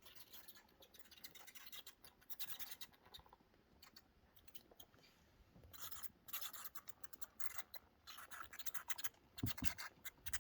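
A roost of tiny bats in a workshop roof, heard as faint, rapid high-pitched clicking and scratching in irregular bursts, with a couple of low bumps near the end.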